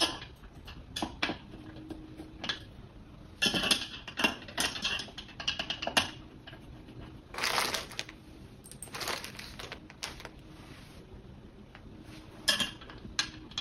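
Irregular clinks, knocks and scrapes of metal furniture hardware being handled: screws, a wrench and the table's square metal pipe frame knocking together during assembly, with a busy cluster of clinks a few seconds in and again near the end.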